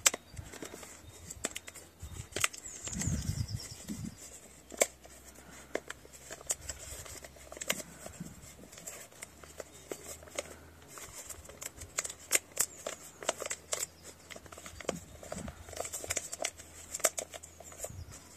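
Newspaper crinkling and crackling in many short, irregular crackles as it is folded down about a centimetre around the rim of a handmade paper pot. A brief low rumble about three seconds in.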